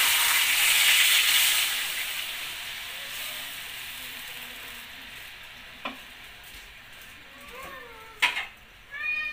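Water hitting hot oil in a wok of fried pork chops: a loud sizzle and steam hiss that dies away over several seconds into a gentle simmer. A sharp click sounds near the end.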